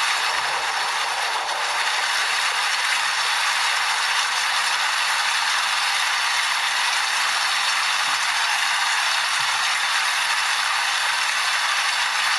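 Steady rain falling, an even wash of noise with no breaks or single drops standing out.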